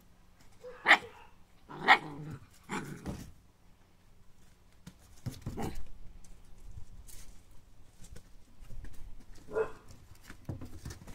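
Entlebucher Mountain Dog puppies barking in play: two sharp barks about a second apart, a third soon after, then a few quieter yaps spread over the rest.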